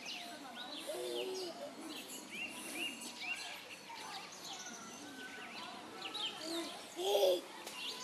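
Small birds chirping and singing in the surrounding trees, many short high chirps and quick rising and falling notes overlapping, against faint background noise.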